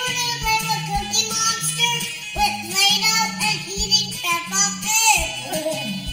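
Background music with a sung melody over a regular, repeating bass line.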